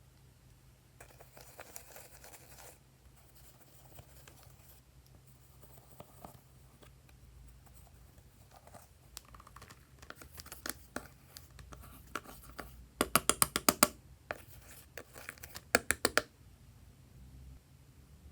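Glossy slime being worked by hand: soft sticky rustling, then two quick bursts of sharp popping clicks in the second half.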